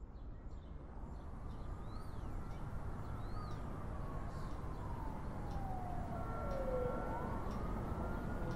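A siren wailing slowly over a steady low rumble, its pitch falling over several seconds and then rising again near the end.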